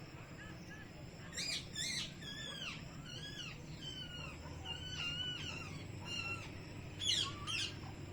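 Parrots calling: sharp falling screeches about a second and a half in and again near the end, with a run of warbling chirps between them.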